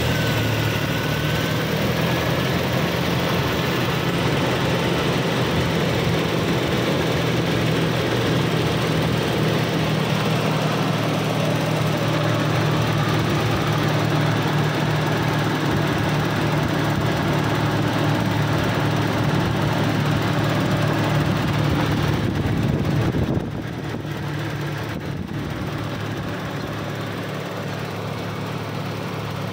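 Toyota Kijang LGX engine running steadily just after start-up, the engine the owner says makes a strange, rough noise. About 23 seconds in it steps down to a somewhat quieter, steady run.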